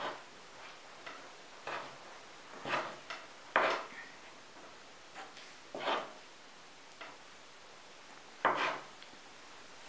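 A fork scraping and knocking against a floured wooden board as flour is worked into a wet strudel dough: about half a dozen irregular strokes, the loudest a little past three and a half seconds and again past eight seconds.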